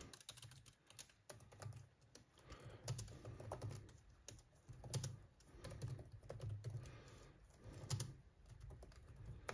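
Keystrokes on a computer keyboard: faint bursts of typing with short pauses between them, as a string of short commands is typed.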